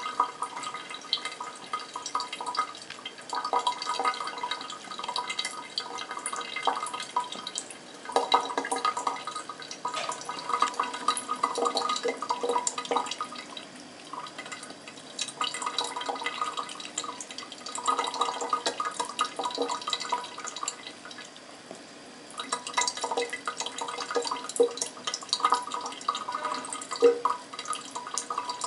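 Thin stream of tap water running from a bathroom faucet and splashing into the sink, uneven and changing in loudness as a kitten's paw and tongue break into the stream.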